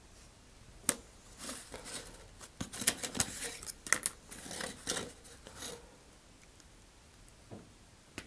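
Hobby knife scoring a slot in a thin vacuum-formed plastic fairing, with the plastic part being handled. A sharp click comes about a second in, then a run of short scratchy strokes and clicks that stops after about six seconds.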